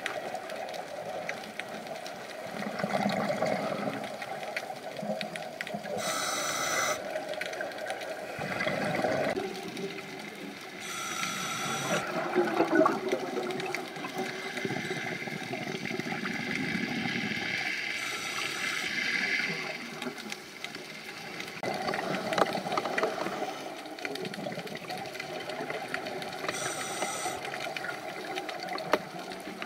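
Scuba diver breathing through a regulator underwater: about every six to eight seconds a short hiss of intake, followed by a longer rush of exhaled bubbles.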